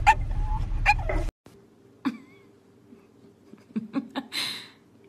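A dog in a car gives two short barks about a second apart over the steady rumble of the car. The sound then cuts to a much quieter scene with only a few faint short sounds: a brief chirp-like call, some soft clicks and a short breathy rush.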